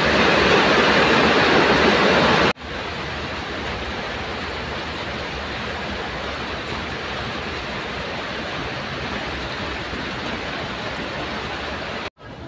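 Steady rain falling on the surface of a fishing pond, an even hiss. It drops in level at a cut about two and a half seconds in and stops for an instant near the end.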